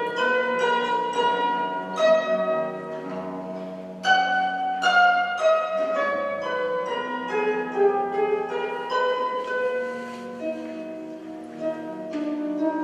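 Concert pedal harp played solo: a flowing run of plucked notes and chords that ring on, with strong accented chords about two and four seconds in.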